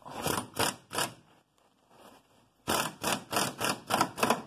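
Hand ratchet clicking in short back-and-forth strokes, three quick strokes, then after a pause six more at about three a second, lightly snugging the control-arm bracket bolt.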